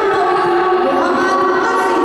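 A voice over a stadium public-address system, its held and gliding tones smeared by echo.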